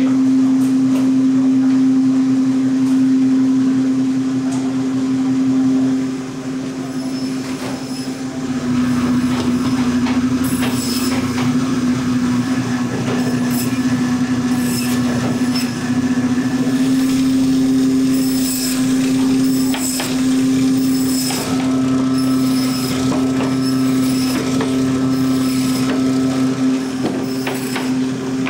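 Band saw running with a steady electric hum while frozen salmon are cut into steaks. The hum dips slightly in pitch about eight seconds in. From then on, frozen fish and slices knock and scrape on the steel saw table.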